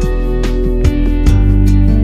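Background music led by plucked guitar, with notes struck about every half second over a steady bass.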